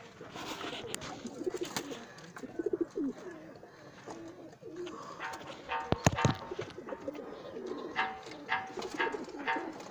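Domestic pigeons cooing in low, warbling coos, with short higher chirps repeating through the second half and a sharp knock about six seconds in.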